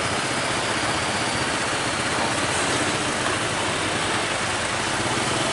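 Diesel engine of a Mitsubishi Fuso Canter light truck running steadily at low speed as it crawls over a railway crossing, laden with a crawler bulldozer, over the steady noise of other waiting traffic.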